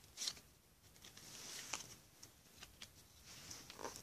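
Football trading cards handled and slid against one another: a faint papery rustle with a few soft clicks scattered through.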